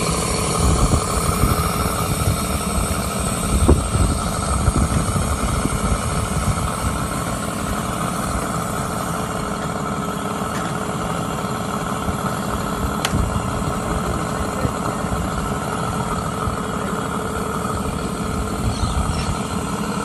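Homemade 150cc V12 petrol engine of a large-scale model Tiger tank running at idle, a little uneven in the first few seconds, then steady.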